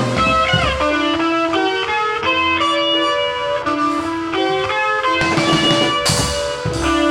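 Guitar-led rock music, an electric guitar playing a melodic line of held notes with a few slides; drums and cymbals come in more strongly near the end.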